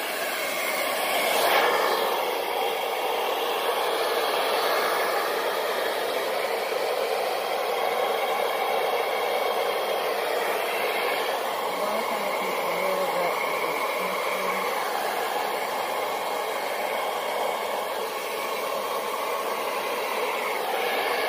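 Handheld hair dryer running steadily, its air stream blowing wet acrylic paint across a canvas in a Dutch pour.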